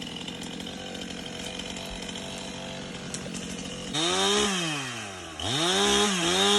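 Gas chainsaw idling steadily, then revved up twice, its pitch rising and falling about four seconds in and rising again a little over a second later, held higher near the end.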